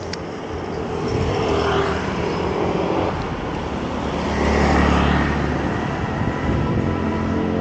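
Street traffic: motorbike and car engines passing over steady road noise, with a swell of engine rumble about halfway through.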